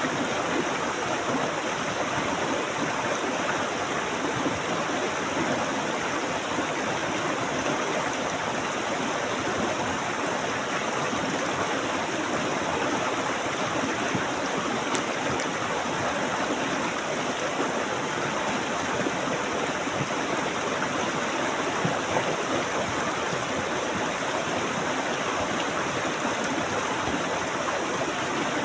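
Water flowing steadily in a stream, an even rushing and gurgling with no pauses.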